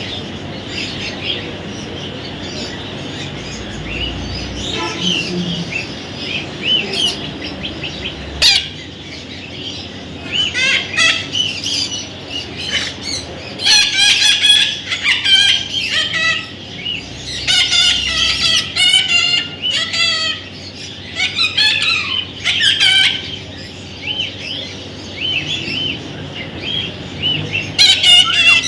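Baby parrot calling with repeated high chirps in rapid bursts, fainter at first and louder and busier from about a third of the way in.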